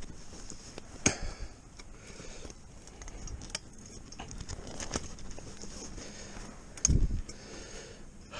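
Climbing tree stand being worked up a tree trunk: scattered sharp metal clicks and knocks over rustling, with one heavier thump about seven seconds in.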